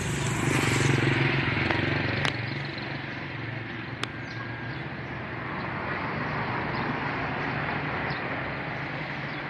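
Road traffic: a vehicle's engine passes close, loudest about a second in, then fades into steady road noise with two sharp clicks.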